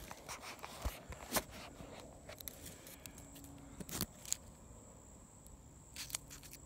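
Quiet woods with a steady high-pitched insect drone, and a few small clicks and rustles of a paper note, just pulled from an old bottle, being handled and unrolled.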